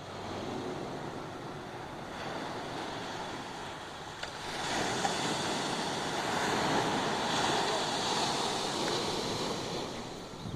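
Ocean waves breaking and washing up on a beach, a steady surf that swells louder about halfway through as a bigger wave comes in, with some wind on the microphone.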